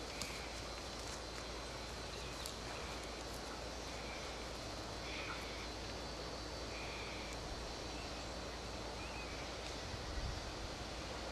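Quiet forest ambience: a steady hiss with a few faint short chirps scattered through it and some light ticks.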